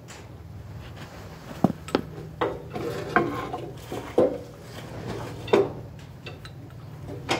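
Metal tools and parts clinking and knocking against each other, a handful of separate sharp clanks over a few seconds, over a steady low hum.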